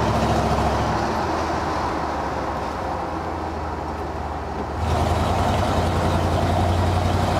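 Modern V8 in a 1967 Ford F100 pickup running on the road, its low note mixed with tyre and wind noise. It eases off a little, then gets clearly louder about five seconds in as it pulls again.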